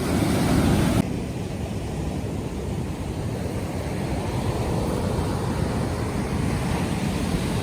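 Ocean surf washing onto the beach, with wind on the microphone. The sound is louder for about the first second, then drops abruptly to a steadier, lower wash.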